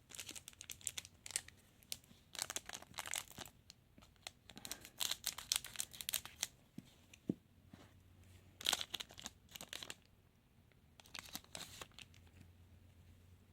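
A trading-card packet wrapper being torn open and crinkled by hand, in about five short bursts of crackly rustling with quiet gaps between them.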